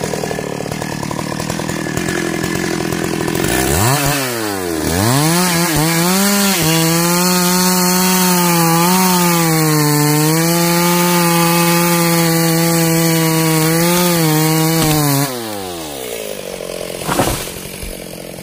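Stihl MS 382 two-stroke chainsaw running slower, then revving up about four seconds in and cutting steadily through the base of a mahogany trunk at full throttle, its pitch dipping slightly under load. Near the end the throttle is released and the engine falls back to a low speed, and a single sharp thump follows as the felled tree hits the ground.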